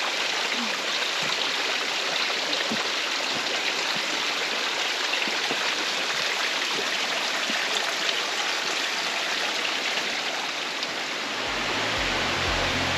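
Steady rush of a mountain creek falling over rock, Helton Creek tumbling down toward its waterfall. Background music fades in near the end.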